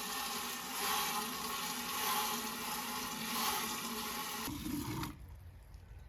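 Water running steadily from a tap, shut off abruptly about five seconds in.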